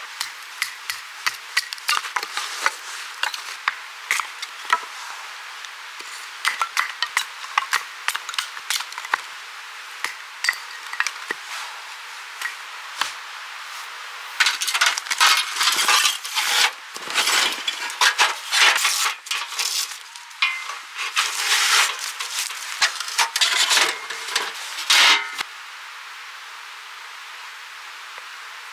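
Camping gear being handled: a run of light clicks and clinks, then louder, denser clattering and scraping for about ten seconds from about halfway through, over a steady hiss.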